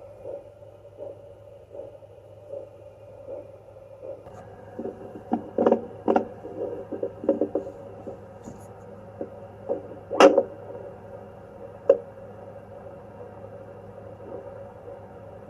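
Handheld fetal Doppler's speaker output: a faint beat about every three-quarters of a second over a steady hum, then louder scraping crackles from about four seconds in, the sharpest about ten seconds in.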